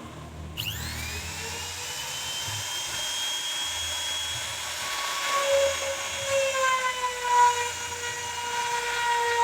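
CNC router spindle motor spinning up about half a second in, its whine rising quickly in pitch and then running at a steady high pitch with several overtones, wavering slightly in the second half.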